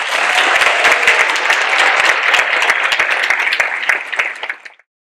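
Audience applauding: dense clapping that cuts off suddenly near the end.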